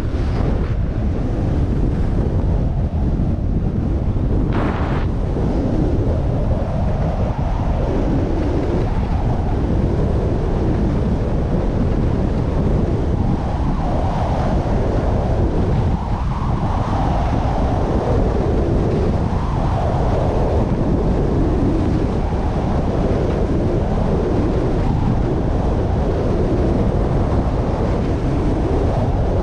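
Wind buffeting a GoPro microphone during a downhill ski run, with the skis' edges scraping on packed snow in a slow swell every couple of seconds as the long carved turns go from one edge to the other.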